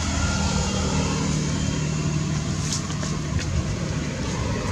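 A motor vehicle engine running steadily, a continuous low hum, with a few faint short high ticks.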